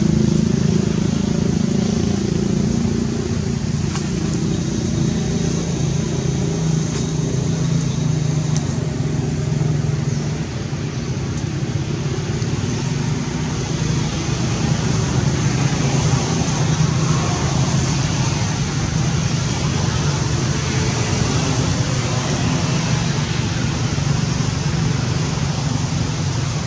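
Steady low drone of an engine running without a break, with a constant high hiss above it.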